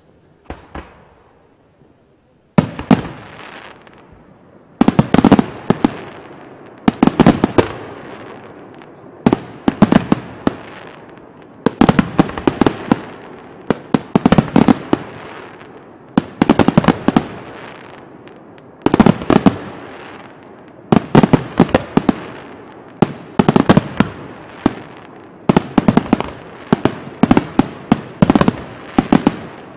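Aerial firework shells bursting in volleys: clusters of sharp bangs about every two seconds with crackling between them, starting a little over two seconds in after a single faint pop.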